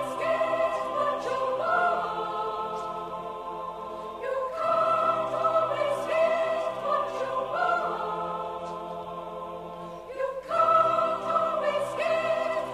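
Choral music in a classical, operatic style: a choir singing held chords that swell in phrases every few seconds.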